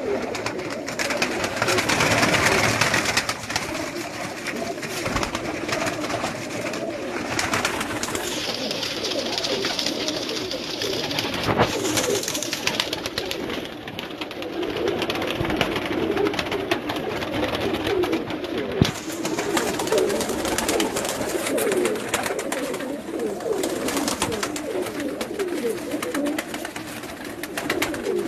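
Pigeons cooing continuously, many low calls overlapping, with a single sharp click about two-thirds of the way through.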